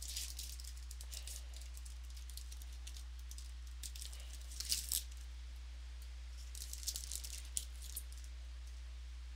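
Football trading cards being handled and flipped through by hand: short papery clicks and crinkles in three clusters, near the start, about five seconds in and around seven seconds in, over a steady low electrical hum.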